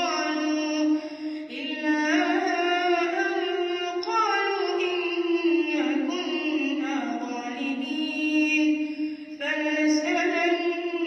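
A young boy reciting the Quran in melodic tajweed style, his high voice drawing out long, ornamented notes. There are short breaks for breath about a second in and about nine seconds in.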